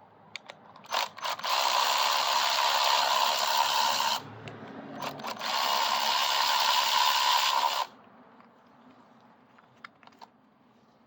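A power tool running in two steady bursts, about three and two seconds long, with a short pause and a few clicks between them.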